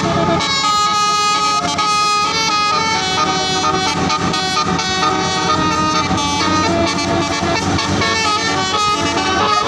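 Bus telolet horn, a set of multi-tone air horns, playing a quick melody of changing notes over the low rumble of the vehicle.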